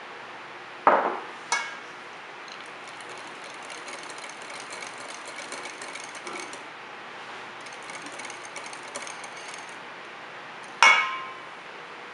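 Wire whisk beating a cream mixture in a small glass bowl: fast, light ticking of the wires against the glass in two spells of a few seconds each. Sharp ringing clinks of glass and metal come about a second in, again just after, and once more near the end.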